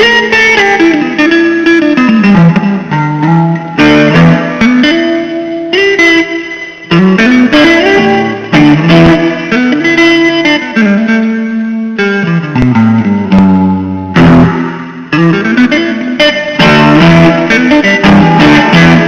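Blues guitar music: an instrumental passage of plucked guitar notes playing a melodic figure that repeats every few seconds.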